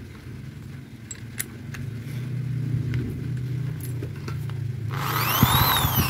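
Electric drill with a small hole saw in its chuck, triggered briefly without load: the motor whines up in pitch and winds back down during the last second or so. A few light clicks come before it, over a steady low hum.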